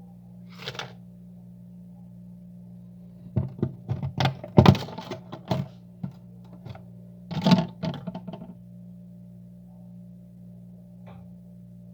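Hard freezer frost and ice being knocked and cracked loose, in two clusters of sharp thunks and cracks with a short scrape near the start, over a steady low hum.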